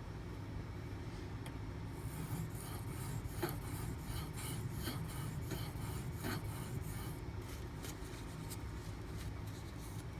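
D2 steel knife blade being stroked across a whetstone during hand sharpening: a run of quick rasping, scraping strokes from about two seconds in until about seven seconds, over a steady low hum.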